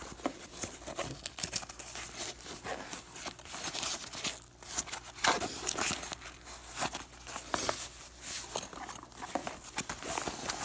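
Hands handling a fabric tactical backpack: a run of irregular rustles, scrapes and crinkles as its pockets and compartments are worked.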